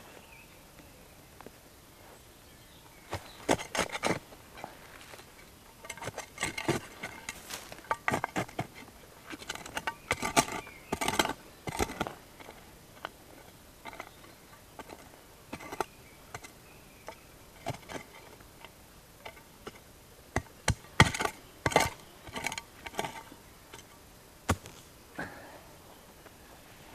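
Small wooden-handled hand trowel digging into soil and cutting through grass roots, with irregular clusters of scraping and crunching strokes and short pauses between them.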